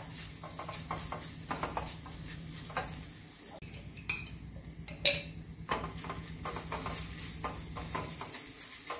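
Grated quince frying in melted butter in a pan, sizzling while it is stirred, with the spoon scraping and tapping against the pan. There are two louder clinks about four and five seconds in.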